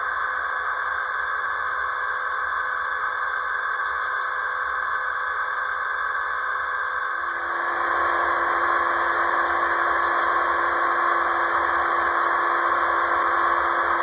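Sound from the LokSound 5 decoder in an HO-scale Tangara electric train model, played through its small speaker: a steady electric whine and hiss. About seven and a half seconds in it gets louder and a lower steady tone joins.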